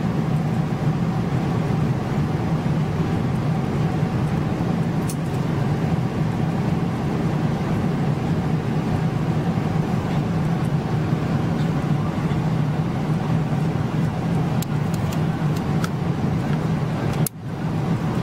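Steady cabin drone of a Boeing 777-300ER in cruise, its GE90-115B engines and the airflow making a deep, even hum with a faint steady tone above it. A few faint clicks come and go.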